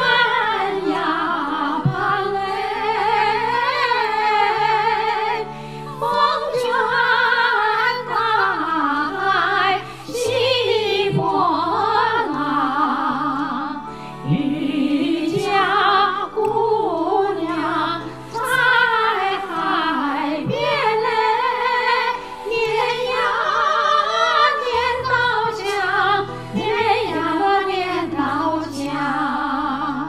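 Two women singing a Chinese song as a female duet, in a full operatic style with wavering vibrato on held notes, over an accompaniment of steady low notes.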